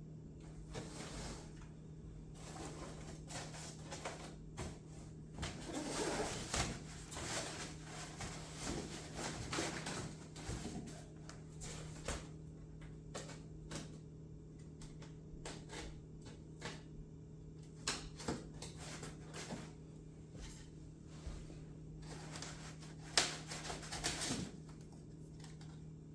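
Hands unpacking a boxed foam RC model airplane: scattered rustles, clicks and knocks of packaging and parts being handled, with a sharper knock near the end, over a steady low hum.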